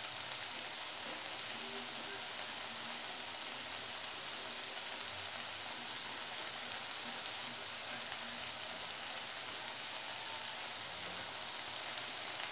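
Elephant apple pickle sizzling in mustard oil in a frying pan, a steady high hiss.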